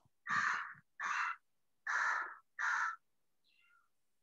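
A crow cawing repeatedly: four harsh caws in a row about two-thirds of a second apart, then a fainter call near the end.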